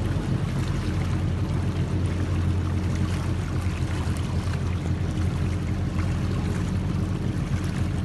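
Boat engine running steadily with a low hum, over a constant wash of water noise.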